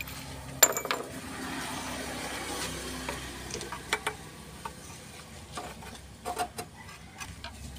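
Spark plug wrench loosening a spark plug from the engine head. A sharp metal click about half a second in, a faint rasping for a few seconds, then a few scattered metal clicks near the end.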